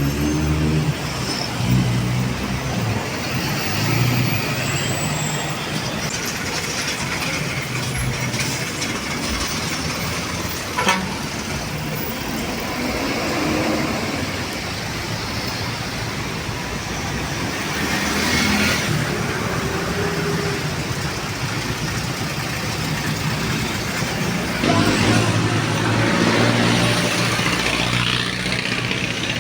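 Steady urban road traffic with heavy diesel engines running, growing louder near the start and again near the end.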